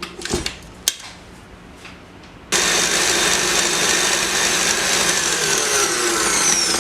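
A few light clicks, then about two and a half seconds in an electric mixer switches on and runs steadily, whisking eggs, sugar and sour cream in a bowl, its whine sinking slowly in pitch.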